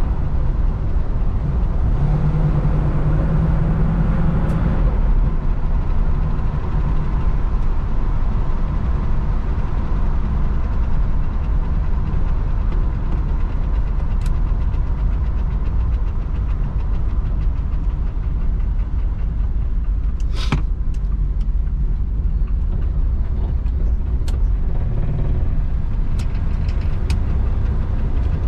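Classic car on the move: steady engine and road rumble, with the engine hum stronger for a couple of seconds near the start and a single sharp clack about twenty seconds in.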